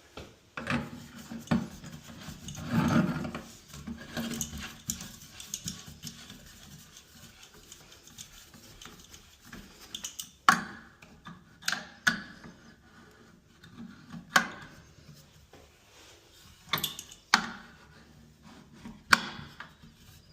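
Shower head and its fittings being handled and fitted by hand: rubbing and scraping for the first few seconds, then a string of separate sharp clicks and knocks, about seven in all, in a small room.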